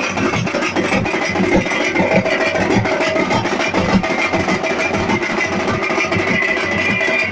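Loud live festival music led by a group of drums beating a dense, steady rhythm, with a high held note running over the drumming.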